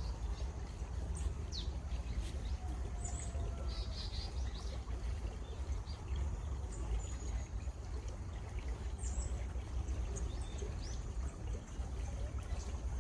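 Running water flowing steadily, with a deep continuous rumble, while wild birds give short, scattered high chirps and quick slurred notes.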